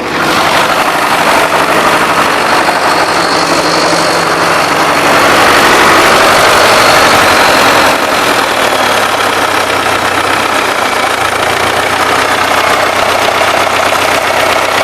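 SMD-18 diesel engine of a DT-75M crawler tractor running, louder for a few seconds mid-way before dropping back suddenly about halfway. It has a knock that the owner puts down to a connecting rod, either the big-end bearing or the small end at the piston pin, and that is heard at low revs rather than high.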